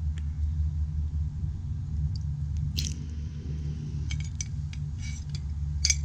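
Low steady rumble, with a few light clicks and taps as a plastic rain gauge tube is tipped upside down, emptied and handled.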